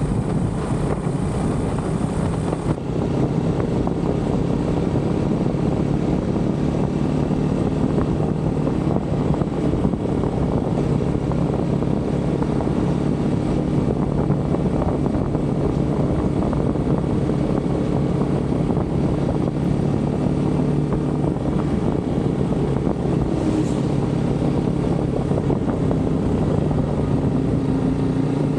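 GPX motorcycle engine running at a steady cruising speed, a constant engine note over wind and road noise.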